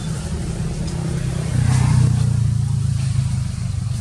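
A motor vehicle's engine running steadily, growing louder for a couple of seconds in the middle before easing off.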